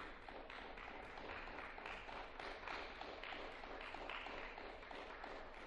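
Audience applauding: a faint, dense patter of many hands clapping.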